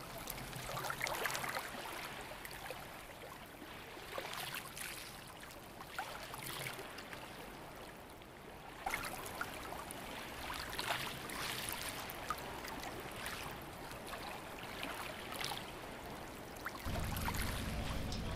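Water splashing and trickling in short, irregular bursts. A low, steady rumble comes in near the end.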